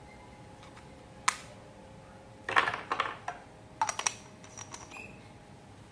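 Plastic clicks and rattles of batteries being pushed into a microphone's battery compartment: a single click a little over a second in, then two quick clusters of clicks around the middle and a few lighter ones after.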